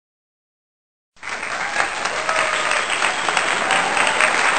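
A crowd clapping and applauding, a dense steady patter of many claps that starts abruptly about a second in.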